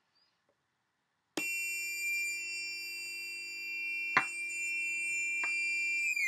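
Two breadboard oscillators mixed through diodes, heard through an amplifier, switch on suddenly about a second and a half in with a steady high-pitched electronic tone over a low hum. A loud click comes about four seconds in and a fainter one a second later. Near the end the pitch starts to bend as a potentiometer knob is turned.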